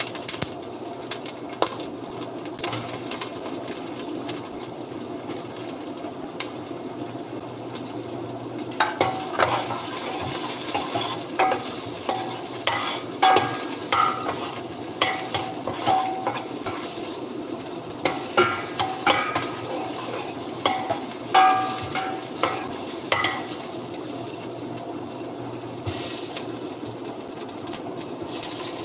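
A metal spoon stirring in a large stainless steel stockpot, clinking and scraping against the pot's sides and rim, with most of the clinks coming in the middle of the stretch. Underneath is a steady hiss from the steaming pot.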